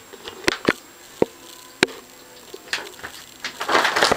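A cat scrabbling at a plastic shower curtain in a bathtub: a few sharp taps and clicks, then from about three and a half seconds a dense crinkling rustle of the curtain.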